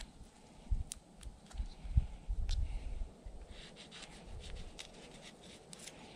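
Hands opening a tea-bag sachet: paper rustling with scattered small clicks and crinkles, busiest in the second half. A few low bumps of handling come in the first half, the loudest about two seconds in.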